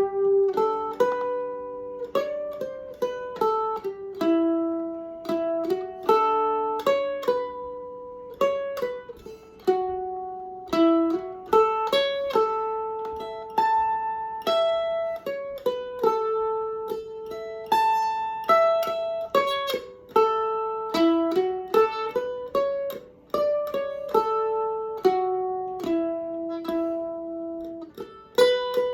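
Eastman M104 mandolin played solo, picking a bluegrass melody with some notes held for about a second.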